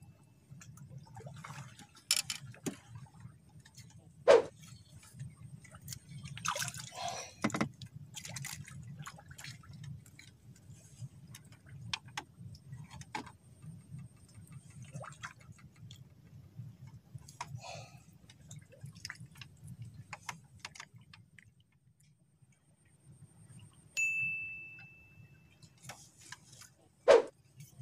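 Scattered clicks and knocks from fishing rods and reels being handled on a bamboo fish-cage walkway, with two sharp loud clicks, one a few seconds in and one near the end, over a low steady hum. A brief splashy rustle comes a few seconds in, and a short high ding sounds near the end.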